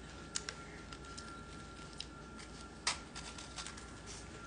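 Quiet room with a few faint, scattered clicks and rustles from small handling noises, and a faint steady high tone.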